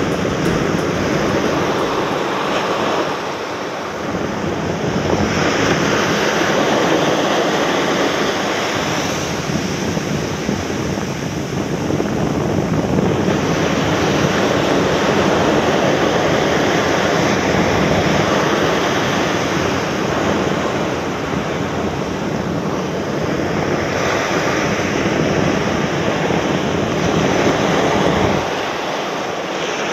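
Surf breaking and washing up a sandy beach, a loud, steady noise that swells and eases several times as the waves come in, with wind buffeting the microphone.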